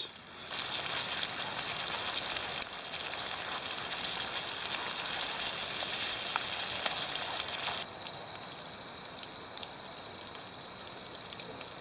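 Sugar syrup with almonds boiling hard in a pan, a steady bubbling and sizzling with scattered small pops. The water is nearly boiled off and the syrup is thickening towards the foaming, caramelising stage of candied almonds.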